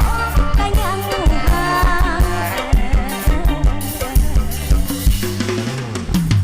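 Upbeat Isan band music, with a drum kit keeping a steady beat under bass and a wavering melody line.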